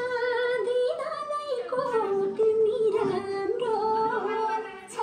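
Music with a voice singing a melody of long, held notes that bend and waver in pitch.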